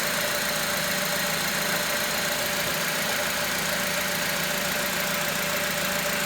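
2006 Honda Element's 2.4-litre four-cylinder engine running steadily, with a constant tone over the engine noise. The owner is trying to diagnose this strange noise and suspects it may be the timing chain tensioner.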